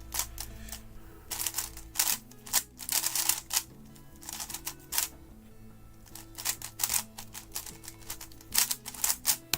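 GAN 11 M magnetic speedcube being turned fast, plastic layers clicking and clacking in quick bursts with short pauses between them.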